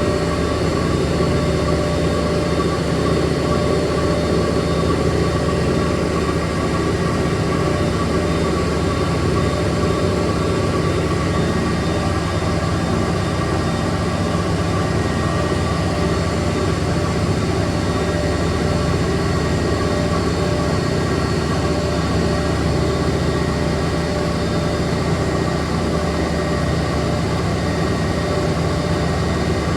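Extra-large coin-laundry washing machine in its high-speed spin cycle: a steady machine hum with several constant tones held throughout.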